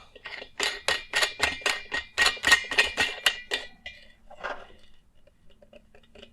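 A quick run of about fifteen sharp clicks, about five a second, each with a short ringing tone, then a few fainter taps: a vintage lamp shade clinking against the pendant's lamp holder as it is fitted on.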